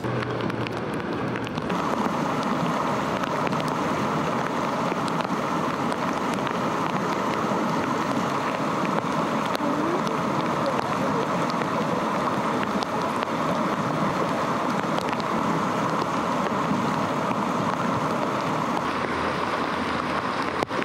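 Steady rushing noise of running water. It grows louder and brighter about two seconds in and then holds even, with faint scattered ticks.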